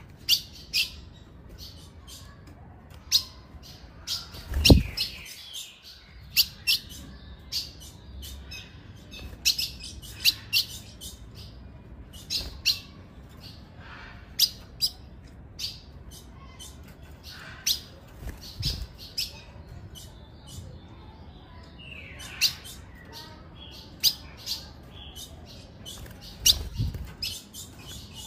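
Female ultramarine grosbeak (azulão) giving short, sharp chip calls at irregular intervals, the female call used to excite a male azulão. A few low thumps, the loudest about five seconds in, another mid-way and one near the end.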